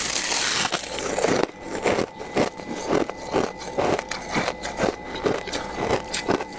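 Thick freezer frost being scraped off, crunching. A longer hissy scrape comes first, then short crunchy strokes about twice a second.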